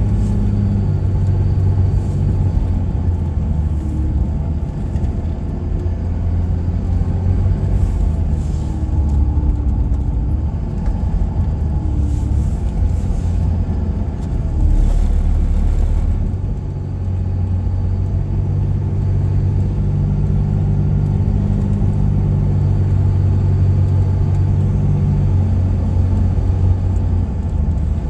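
A vehicle's engine and tyre noise heard from inside the cabin while driving: a steady low rumble.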